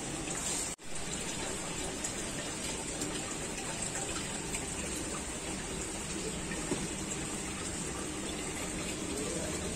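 Aquarium aeration running: a steady rush of bubbling water from the tank's air line and filter, with a brief dropout a little under a second in.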